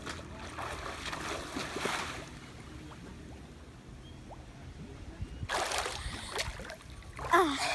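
Pool water lapping and splashing close to the water surface as a swimmer in a monofin swims up underwater. A burst of splashing about five and a half seconds in as she breaks the surface, then a short vocal sound from her near the end.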